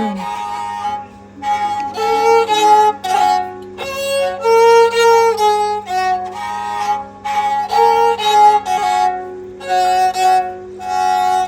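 Bodo serja, a bowed folk fiddle, playing a melody in short phrases of held and stepping notes with brief breaks between them.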